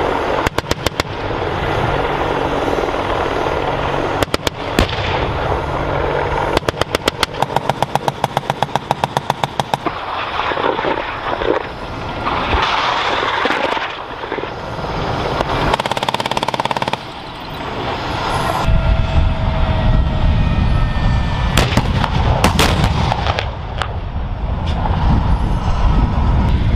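Bursts of rapid automatic cannon fire, about ten shots a second, over the steady noise of AH-64 Apache attack helicopters. Later a deep, steady rumble of heavy vehicles sets in, with a few loud single shots.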